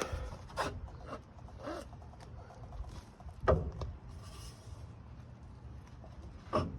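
Driveshaft slip yoke being worked onto the transmission output shaft splines: scattered clicks and rubbing as it is turned to line up the teeth, with the loudest knock about three and a half seconds in.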